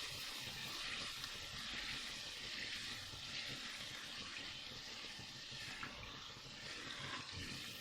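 Thick, reduced tomato sauce cooking in a pan, sizzling and spitting with a steady hiss.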